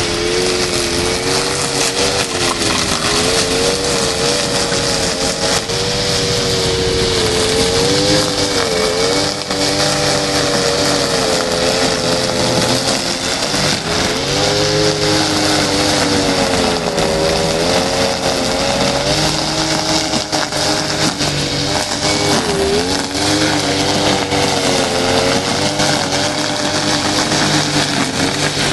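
Oleo-Mac petrol brush cutter engine running hard throughout, its pitch rising and falling every second or two as the engine speed varies while cutting grass.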